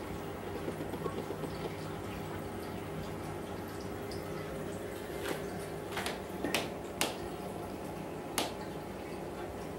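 Steady hum and trickling water of a saltwater reef aquarium's circulation, with five short sharp clicks or taps in the second half.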